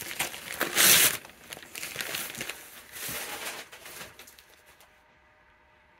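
Comic books in plastic sleeves crinkling and rustling as they are handled, loudest about a second in and dying away after about four seconds.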